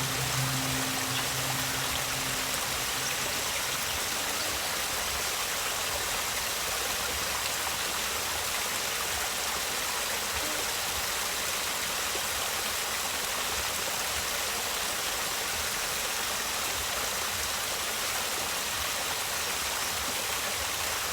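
Steady, even rush of running water, like a stream, with no change throughout.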